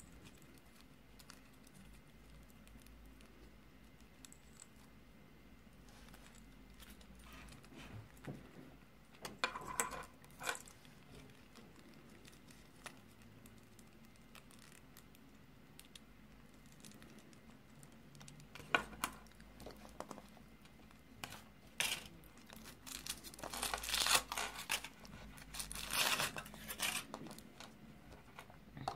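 Foil wrapper of a Kinder Surprise chocolate egg being crinkled and torn off by hand, in short bursts of crackling that come thickest in the last few seconds. The first stretch holds only quiet handling.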